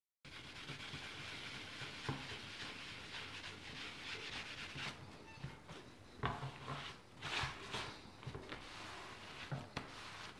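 Hand sanding of filler repairs on a Mk2 Ford Escort vinyl dash pad: steady scratchy rubbing strokes back and forth, with a few sharp taps.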